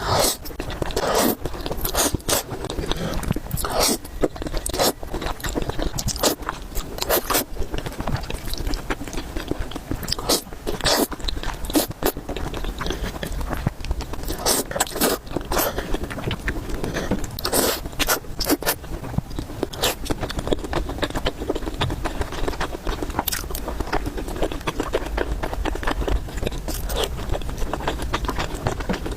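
A person chewing and biting food, with many irregular sharp, crunchy clicks and smacks throughout.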